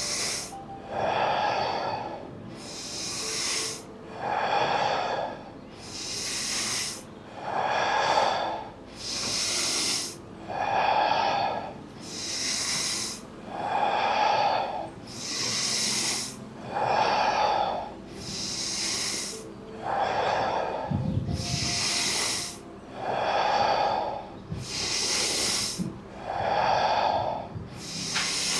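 Paced, audible breathing close to the microphone, done as a 'fire' breathing exercise. In-breaths and out-breaths alternate evenly, about one full breath every three seconds, one stroke hissier and the other breathier.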